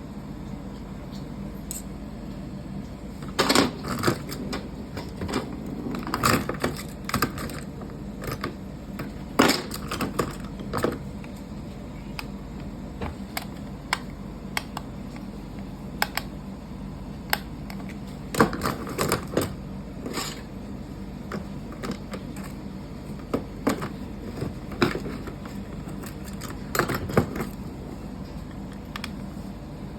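Irregular clicks and clacks of small plastic parts and a tool being handled while a lint remover is taken apart, in clusters with pauses between, over a steady low hum.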